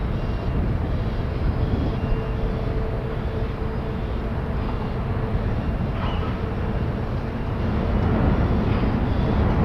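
Steady low rumble of a large ro-ro passenger ferry under way as it comes in, with a faint steady hum for a few seconds in the middle.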